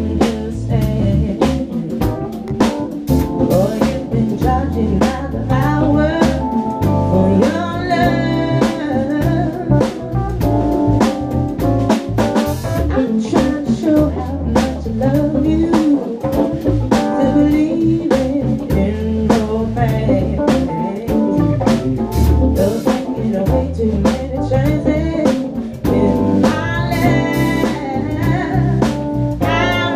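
Live band playing a mid-tempo R&B groove: drum kit, keyboards, electric guitar and a full, warm electric bass through a 1960s Acoustic 360 amp with its folded-horn cabinet.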